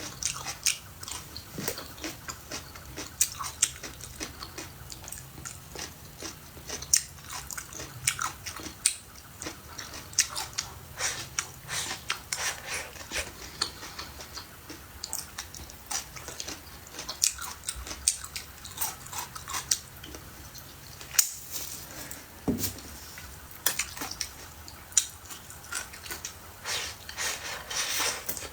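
A person chewing and biting food close to the microphone, with many short, sharp crunchy clicks and mouth sounds.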